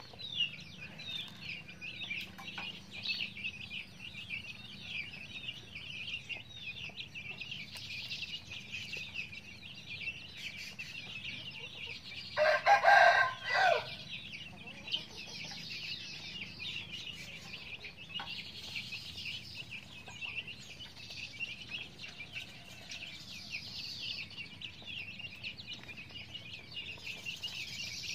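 A brood of chicks peeping continuously in high, rapid chirps. About halfway through, a rooster crows once, the loudest sound.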